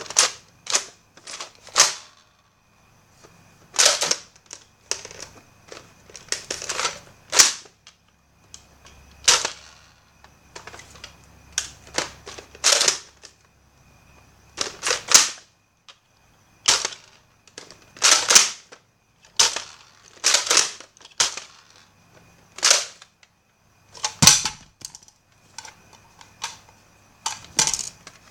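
Nerf foam-dart blaster being worked and fired: a string of sharp plastic clacks and snaps, irregularly spaced, some coming in quick pairs.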